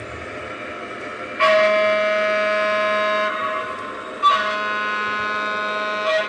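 An O-gauge model locomotive's onboard sound system sounds two long horn blasts, a chord of several pitches, with a short gap between them, over the faint steady hum of the running train.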